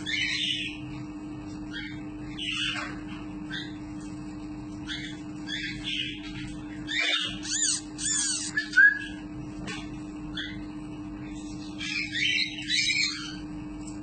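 A newly hatched parrot chick giving high-pitched begging calls in short, irregular bouts while it is hand-fed. A steady low hum runs underneath.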